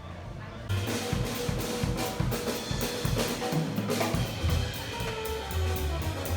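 Music with a drum kit, bass and melody, starting suddenly under a second in and carrying on with a steady beat.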